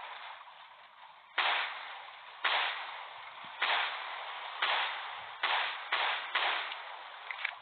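Pistol firing seven shots, about a second apart at first and then quicker toward the end, each sharp crack trailing off in a short echo.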